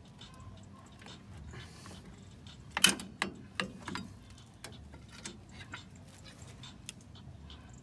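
Metal clinks and taps of tools and drum-brake hardware (springs, shoes, pliers) being handled during disassembly: scattered light ticks, with a quick run of louder clanks about three seconds in.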